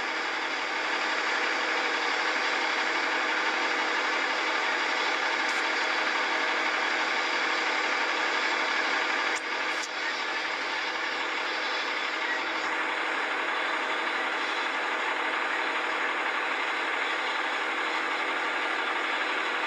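Steady engine drone: many held tones over a hiss, at an even pitch and level throughout.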